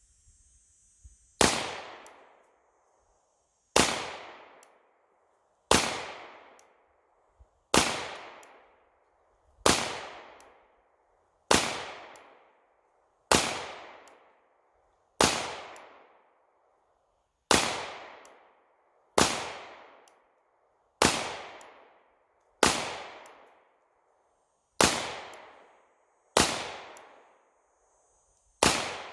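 Beretta 92S 9 mm pistol firing fifteen rounds of 124-grain full metal jacket in slow, aimed single shots, about one every two seconds. Each shot is a sharp crack with a short fading echo.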